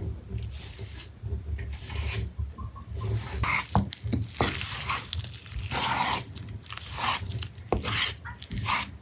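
Irregular rubbing and scraping, with a few sharp clicks, over a low steady rumble.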